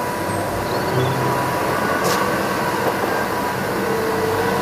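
MAN concrete mixer truck's diesel engine running as the truck moves slowly along a street, a steady vehicle rumble with traffic noise.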